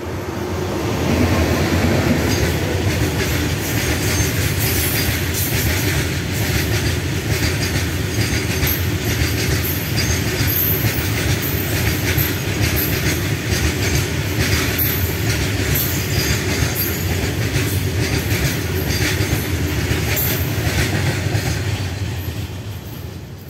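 A rake of BCNA covered goods wagons rolling past at speed: a steady rumble with repeated clatter of wheels over rail joints. It builds in the first couple of seconds and fades near the end as the last wagon passes.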